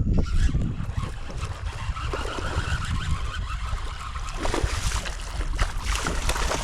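Water trickling and splashing against a kayak, with wind rumbling on the microphone.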